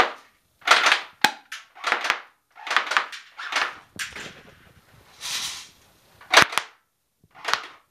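Crosman R71 battery-powered airsoft rifle firing single shots, about a dozen short pops at irregular intervals of roughly a second, with its rechargeable battery running low.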